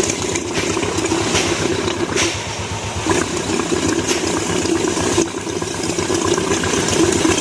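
Royal Enfield single-cylinder engine idling steadily with an even, rapid low pulsing, with a few faint clicks through it.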